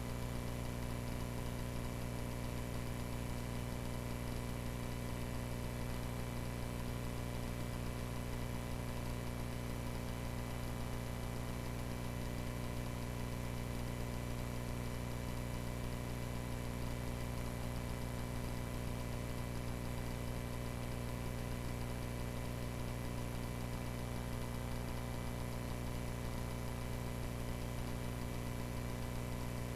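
Cessna 140A's light-aircraft piston engine running steadily at an unchanging pitch, a constant drone heard in the cockpit.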